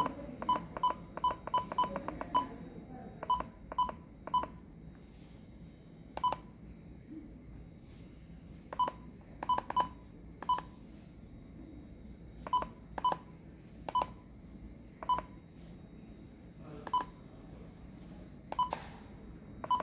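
Handheld pulse oximeter giving short touchscreen key beeps as its menus are tapped through: about two dozen identical beeps at one pitch, irregularly spaced, some in quick runs and some singly.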